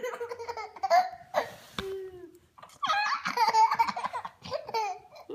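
A baby laughing in several bouts, the longest and loudest about three seconds in.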